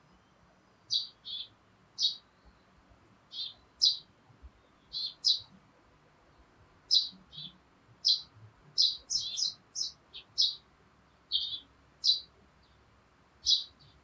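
Small birds chirping: short, separate chirps, often in quick pairs, scattered irregularly throughout, over a faint steady hiss.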